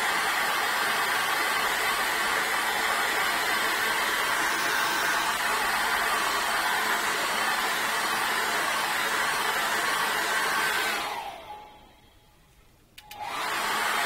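Handheld hair dryer blowing steadily over a canvas to dry freshly applied acrylic glaze. About eleven seconds in it is switched off and its pitch falls as it winds down. A second or two later it is switched back on and spins up again.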